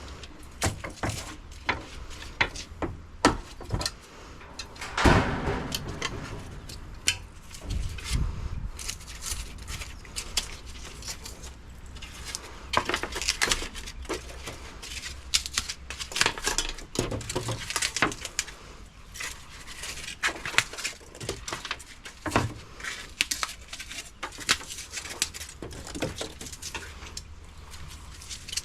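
Insulation foam being peeled and broken off a fridge's copper pipe by hand: irregular crackling, scraping and small knocks, with a louder crack about five seconds in.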